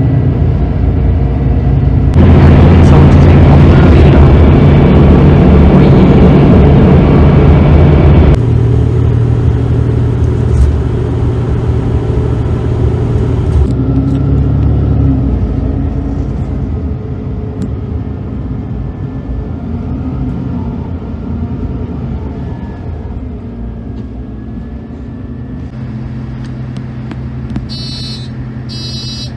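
City bus running, heard from inside the passenger cabin: a steady engine and road rumble, loudest for the first several seconds, then fading gradually as the bus slows to its stop. Near the end, a few short high beeps as the doors open.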